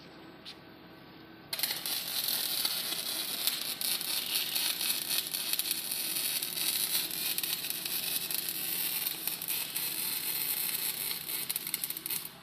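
Welding robot's arc crackling steadily for about eleven seconds, starting abruptly a second and a half in and cutting off just before the end, over a low machine hum.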